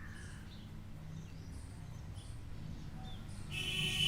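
Small birds chirping in the background: short, high chirps repeating over a steady low hum, with a louder, harsher high sound starting near the end.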